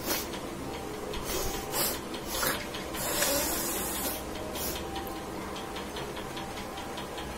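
A person breathing and sniffing through the nose in several short, hissy puffs, with a longer blast of breath about three seconds in, while trying to bring on a sneeze.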